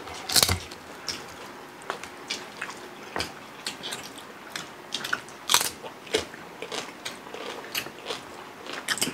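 Close-up crunching and chewing of crispy deep-fried pork knuckle skin (lechon pata) as it is torn apart by hand and eaten, a run of sharp, irregular crackles. The loudest crunches come about half a second in and again a little past the middle.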